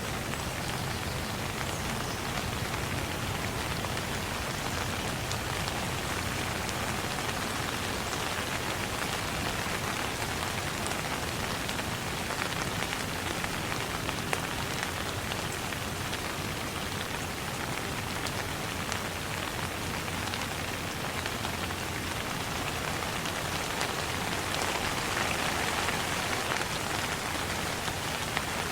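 Steady rain falling, a dense even patter of drops, swelling slightly near the end.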